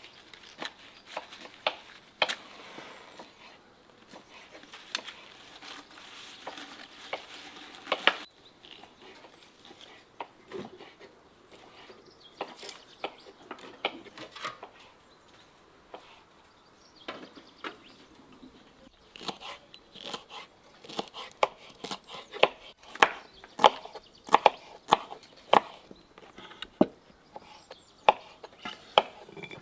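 Kitchen knife chopping bell peppers on a wooden cutting board, sharp knocks about two a second through the second half. Before that, scattered light knocks and a rustling haze from handling.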